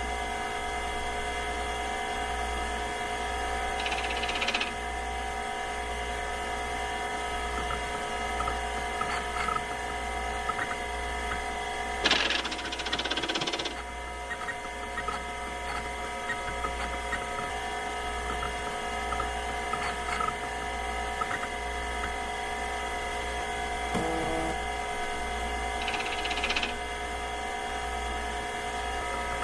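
A steady machine whine and hum, with short hisses about four seconds in, again around twelve seconds in for a second and a half, and near the end.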